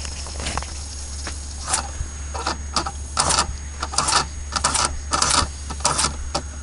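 Mamod model steam engine driving a paddle wheel: a run of short, irregular rough bursts, roughly two a second, starting about two seconds in, over a steady low hum.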